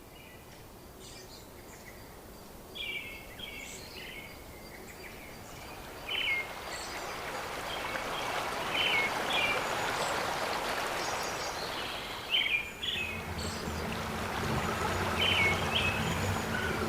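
Small birds chirping in short, repeated calls over a steady rush of running water that slowly grows louder. A low hum comes in near the end.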